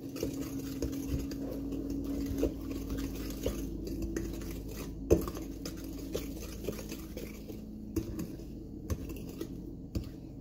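Danish dough whisk stirring thick batter in a mixing bowl, its wire loop scraping through the batter and knocking against the bowl at irregular intervals, with one louder knock about five seconds in.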